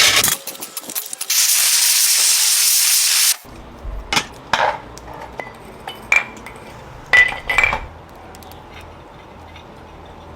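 A loud, steady spray hiss lasting about two seconds, cutting off sharply, followed by a few light clinks and taps of small hard objects.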